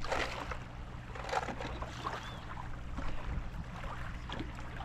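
Water splashing and lapping with scattered short splashes, over a low steady hum, while a small fish is played on the line.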